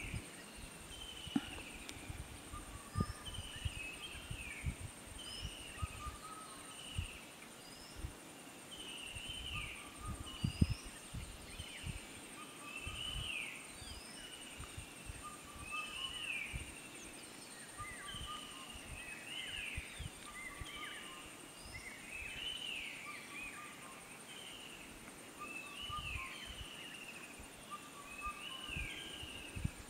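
A bird calls over and over, a short rising-and-falling note every one to two seconds, over a steady high insect trill. A few low thumps, one louder about ten seconds in.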